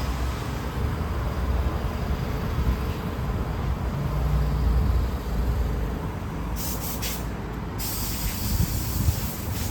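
Street traffic: a vehicle engine rumbling low, with bursts of hiss starting about two-thirds of the way in.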